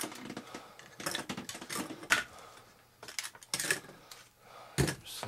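Irregular light clicks, taps and knocks of hands handling small hard parts on a workbench, as things holding the freshly epoxied model-airplane wing are taken off; one sharper knock a little over two seconds in.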